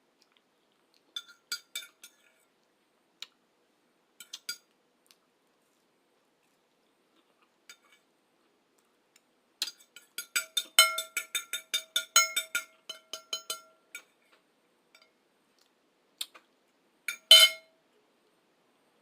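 Metal cutlery clinking against a dish, each clink ringing at the same pitch: a few scattered taps, then a quick run of clinks a little past the middle, and one louder clink near the end.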